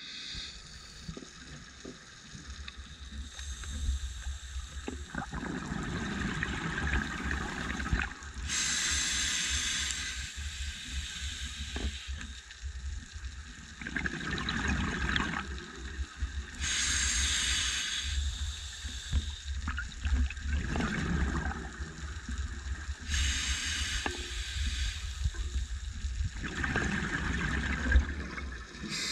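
Scuba diver breathing through a regulator underwater: a hissing inhale alternating with a rush of bubbling exhale, the cycle repeating about every seven or eight seconds over a steady low underwater rumble.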